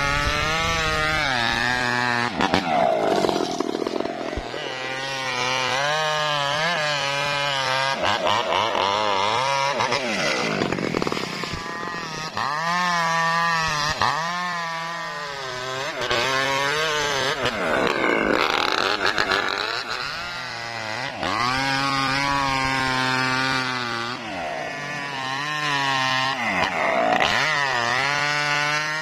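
Two-stroke gasoline chainsaw cutting through coconut palm trunk. The engine runs continuously, its pitch rising and sagging again and again every few seconds as the chain bites into the wood and eases off.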